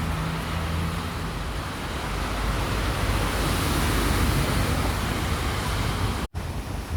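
Heavy rain falling, a steady dense hiss, with a low hum fading out in the first second or so. The sound cuts out for an instant near the end.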